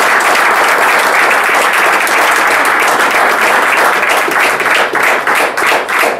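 Audience applauding steadily, thinning into fewer, more separate claps near the end.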